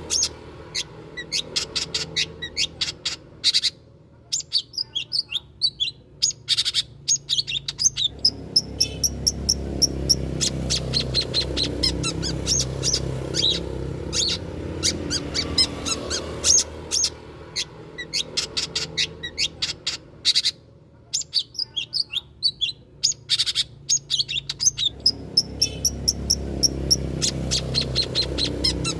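Long-tailed shrike (cendet) singing rapid chattering runs of sharp, high chirps broken by short pauses, over a low background rumble that swells and fades.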